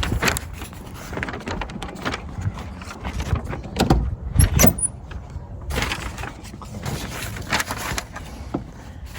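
Irregular clicks, knocks and rustling of hands handling wiring harness connectors, with two louder knocks about four and a half seconds in.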